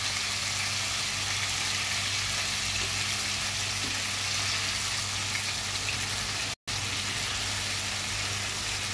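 Chicken pieces shallow-frying in hot oil in a kadhai: a steady, even sizzle over a low hum. The audio drops out for a split second about two-thirds of the way through.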